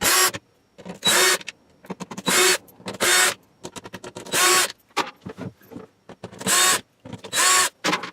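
Cordless drill/driver running in about seven short bursts, each with a brief motor whine, as it backs out the screws holding a light fixture to the ceiling.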